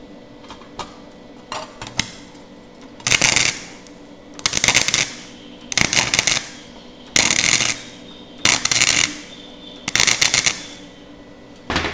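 Gasless flux-core MIG welder (Nagano MIG 130) making six short spot welds on thin 30-gauge galvanized sheet, at its lowest power setting and wire speed 2. Each weld is a crackling burst of arc under a second long, about every second and a half, with a few faint clicks before the first.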